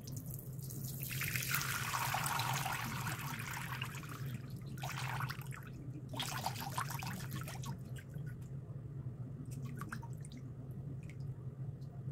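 Melted butter-and-oil mixture poured through a mesh strainer into a glass bowl of liquid: a splashing stream for a few seconds, two shorter pours, then scattered drips near the end. A low steady hum runs underneath.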